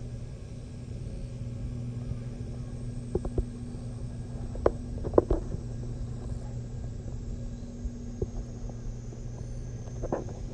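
A steady low hum over rumble, with a few short faint clicks around the middle.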